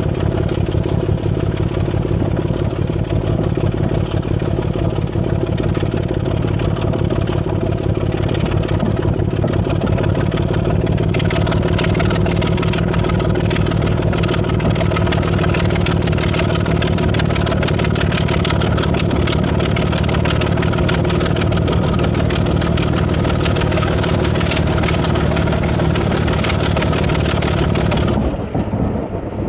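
Class 25 diesel locomotive's Sulzer six-cylinder engine working under load as it hauls the train away, a loud steady engine note with the wheel and rail noise growing. Near the end the engine sound drops away suddenly.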